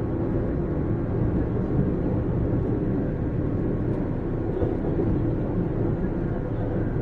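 Running sound of a JR 455 series express-type electric multiple unit heard from inside the car while cruising: a steady rumble of wheels on rail with a constant hum through it.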